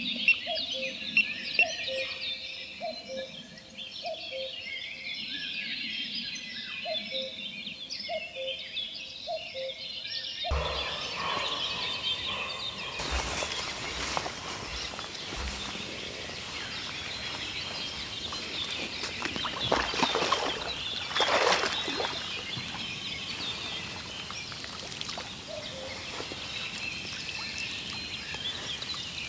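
Many birds singing and chirping. In the first ten seconds a low two-note call repeats about once a second. After about ten seconds a steady hiss takes over under the birdsong, with a few sharp knocks between about thirteen and fifteen seconds in.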